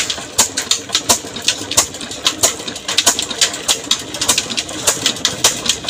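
Old black 22 hp, 300 rpm slow-speed diesel engine running a tube-well pump, with an even, steady knocking beat of about three strokes a second.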